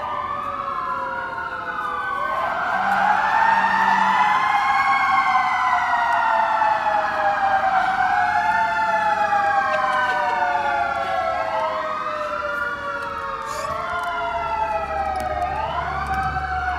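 Several emergency-vehicle sirens wailing at once, their pitches rising and falling slowly and overlapping, with a low engine rumble swelling near the end.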